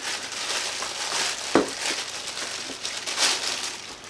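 Thin plastic bag crinkling and rustling as a cable and clamp are pulled out of it, with one sharp click about a second and a half in.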